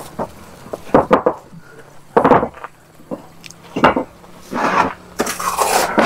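Building-site work noise: a string of sharp knocks and clinks, then longer rasping scrapes, loudest near the end, like a shovel scraping in a metal wheelbarrow and bricks being handled.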